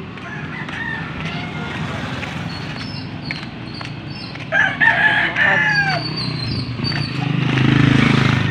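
A rooster crows once, about four and a half seconds in, a call of about a second and a half that falls away at the end. A low rumble swells near the end, with faint high chirps in the background.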